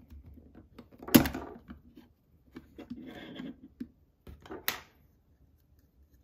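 Handling noises from small plastic parts and a circuit board being taken apart: two sharp clicks, one about a second in and one near five seconds, with light tapping and a brief scrape between them. These come as the power supply connector is unplugged and the main board is lifted free.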